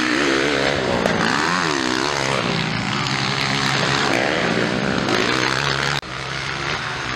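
Motocross dirt bike engines revving hard, their pitch repeatedly rising and falling with throttle and gear changes, more than one bike at a time. About six seconds in the sound drops suddenly and goes on quieter.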